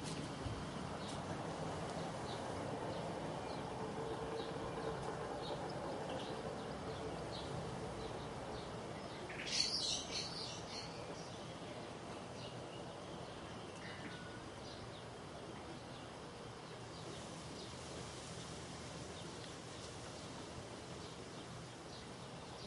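Faint steady background noise, with a short high-pitched bird chirp about ten seconds in and a few faint ticks.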